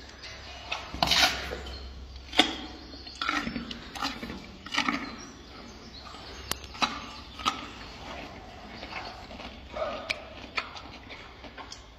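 Gorilla chewing sweet potato close to the microphone: irregular wet crunches, lip smacks and clicks, a few of them sharp and loud, over a low steady hum.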